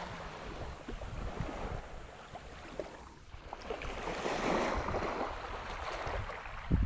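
Small waves washing onto a sandy shore, with wind on the microphone; a wash of water swells up about four to five seconds in, and a short knock comes at the very end.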